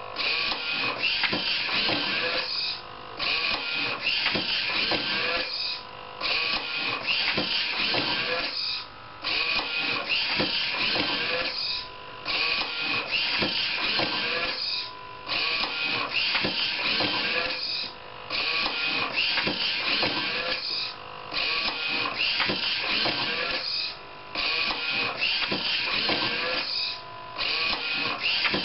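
Motors and mechanism of a homemade automatic book scanner cycling through page turns: a busy mechanical whirring and clatter that repeats about every three seconds, each cycle parted by a brief quieter pause.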